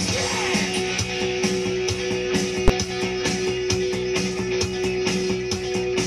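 Rock music with guitar and a steady beat, with a single sharp click about two and a half seconds in.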